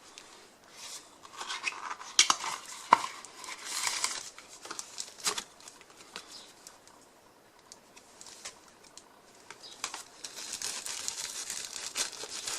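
Small plastic-and-metal clicks and rustling as a Type-C cable and a Type-C to USB adapter are handled and plugged together, in two spells of activity with a quieter stretch in the middle.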